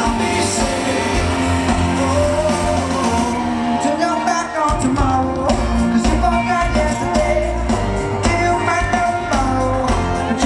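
Pop song with a sung lead vocal over a full band with heavy bass. About three and a half seconds in, the bass and the top end drop out for about a second, then the full band comes back in.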